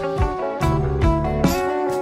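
Background music with sustained melodic notes over a steady beat.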